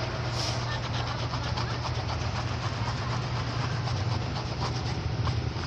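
Steady low machine hum with an even noisy haze and a few faint clicks.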